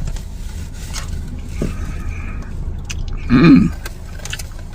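A spoon scraping and digging into soft-serve ice cream in a cup, with quiet chewing, over a steady low hum. A short vocal sound comes about three and a half seconds in.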